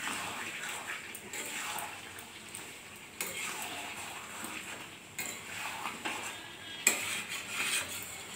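A wooden spatula stirs chicken and potato curry in a metal kadai, scraping and knocking against the pan, with sharper knocks about three, five and seven seconds in, the last the loudest. The spiced mixture sizzles faintly as it is fried down (kasha).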